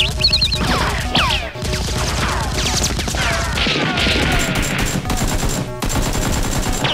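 Rapid automatic gunfire sound effects laid over a Nerf blaster shootout: fast, evenly repeated shots throughout, mixed with many sharp falling whistles like passing or ricocheting rounds.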